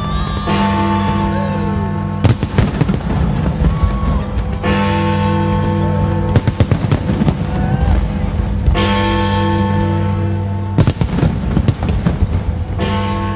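Fireworks bangs and crackles mixed with loud music: long held chords start about every four seconds, and sharp bursts fall mostly in the gaps between them.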